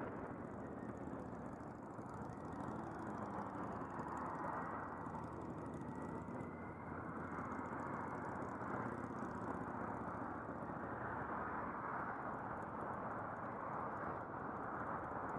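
Motorcycle cruising at motorway speed, its engine and the wind rushing past the helmet-mounted microphone making a steady, even roar.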